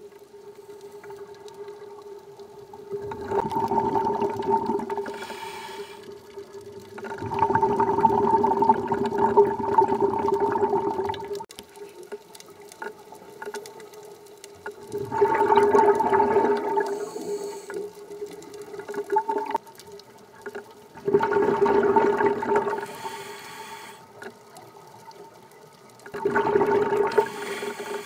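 Scuba diver's regulator exhaling underwater: five rushing bursts of bubbles, each a few seconds long, coming about every five to six seconds in a breathing rhythm, over a steady low hum.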